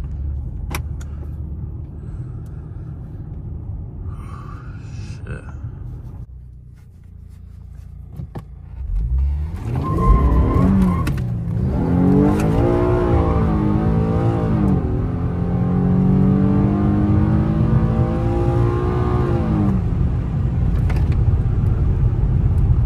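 Infiniti G37 sedan's 3.7-litre VQ37 V6 running low, then put to hard throttle about nine seconds in: the revs climb, drop back at each upshift and climb again through three gears before settling near the end.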